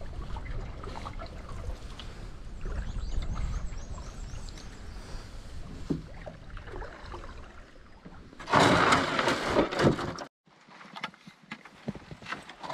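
Wind rumbling on the microphone as a canoe glides in, then about eight seconds in a loud scrape lasting nearly two seconds: the wood-strip canoe's hull grinding up onto a gravel landing. A few light knocks follow.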